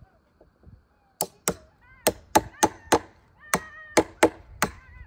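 Hammer blows on homemade steel log dogs, driving them into the log to hold it fast for milling: about ten sharp strikes in quick bursts, starting about a second in.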